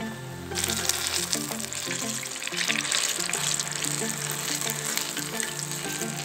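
Batter-coated banana slices deep-frying in hot oil: a dense, steady crackling sizzle that comes in about half a second in, over background music.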